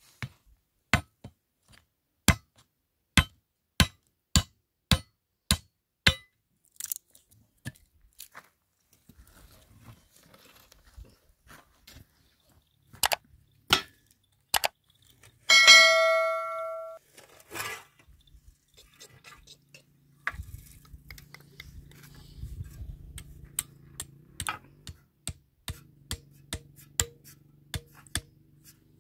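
A run of about ten sharp knocks, roughly two every second, then a few more, and one loud metallic clang near the middle that rings on for over a second, like a struck metal pot or dish. A low steady hum with scattered clicks comes in during the second half.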